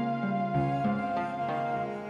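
Instrumental background music with held notes that shift in pitch every half second or so.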